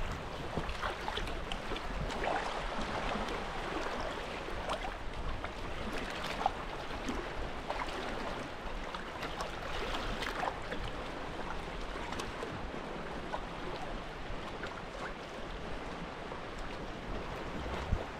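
Sea water lapping and splashing around a sea kayak: a steady wash with scattered small splashes and drips.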